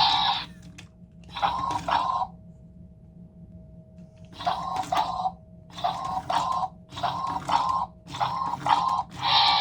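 Toy robot's electronic sound effects: short, clipped two-part bursts repeating roughly once a second, with a pause of about two seconds early on. A faint steady tone runs underneath.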